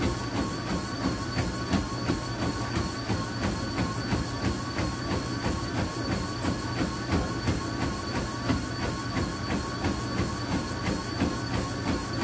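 Treadmill running at speed with its motor giving a steady whine and hum, while a runner's footfalls land on the belt in an even, quick rhythm.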